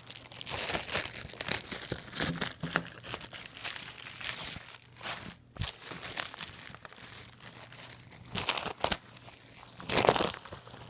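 Packaging around a pair of socks being crinkled and torn open by hand: irregular crackling and rustling, with a louder burst near the end.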